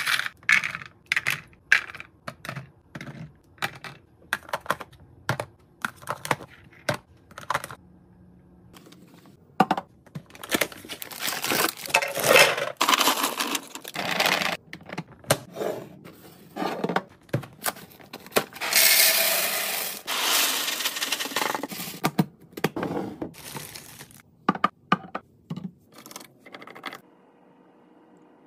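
Small dry food items, saltine crackers and hard dog biscuits, clicking and clattering as they drop into clear plastic and glass storage containers: many sharp ticks and taps in quick succession, broken by a few longer, denser stretches of clatter.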